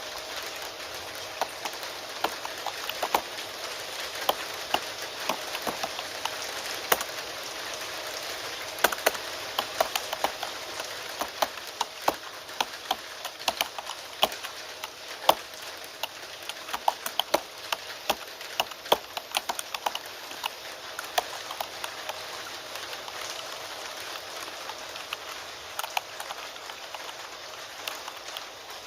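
Steady rain hiss with irregular clicks of computer keyboard keys being typed over it, the clicks coming in quick runs and pauses.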